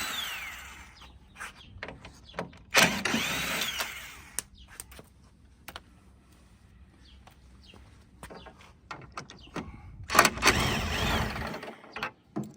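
Cordless power drill spinning out the cowling bolts in three short runs whose pitch rises and falls, with small clicks between.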